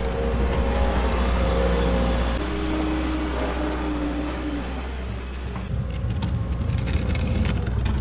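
Skid steer engine running steadily under load as its bucket pushes through deep snow, with the scrape and hiss of snow being shoved.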